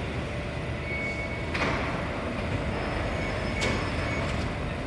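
MP14 metro train standing at the platform: a steady hum and rumble of the train, with two sharp clicks about a second and a half and three and a half seconds in.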